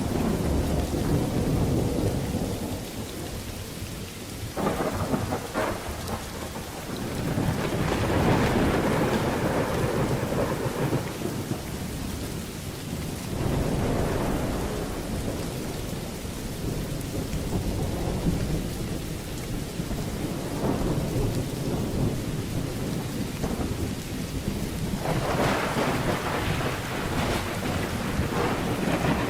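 Thunderstorm: steady heavy rain with rolling thunder, the rumbles swelling several times, loudest about 8 seconds in and again near the end.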